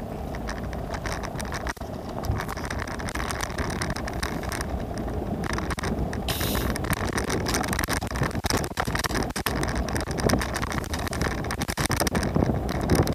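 Riding on a scooter: steady rumble of wheels on the road with wind buffeting the microphone, and frequent small rattles and knocks. A brief hiss comes about six seconds in.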